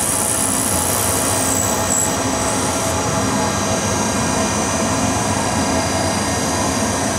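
Shop vacuum running steadily, drawing graphite dust from a CNC milling machine through a flexible hose. A high whine over it fades out about two to three seconds in.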